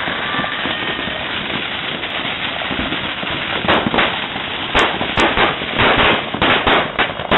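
A ground firework fountain hissing and crackling as it sprays sparks. From about halfway, sharp firecracker bangs go off one after another, coming faster near the end.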